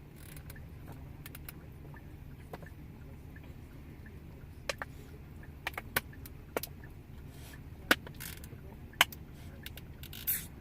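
Steady low rumble of a car heard from inside the cabin, with a dozen or so scattered sharp clicks and rattles; the loudest click comes about eight seconds in.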